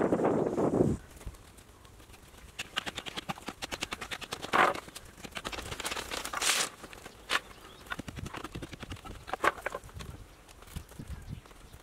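Machete chopping at bamboo: irregular sharp knocks and cracks, a few of them louder, starting a couple of seconds in. Before them, a rushing noise cuts off about a second in.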